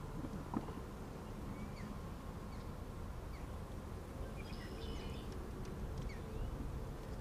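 Birds giving scattered short chirps over a steady low rumble outdoors, with a single sharp click about half a second in.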